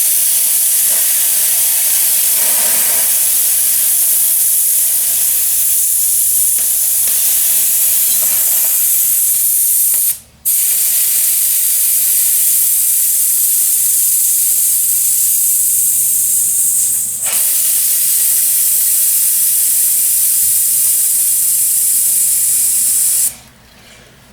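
Compressed air hissing loudly and steadily into a dirtbike tire's tube through the valve, inflating it to seat the tire bead on the rim. The hiss breaks off briefly about ten seconds in, dips again at about seventeen seconds, and stops shortly before the end.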